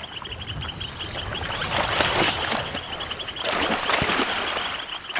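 Water splashing as swimming monkeys thrash in the water, in two loud bouts about two seconds in and again around three and a half seconds in. Underneath, a steady insect chorus keeps up a rapid chirping with a thin high whine.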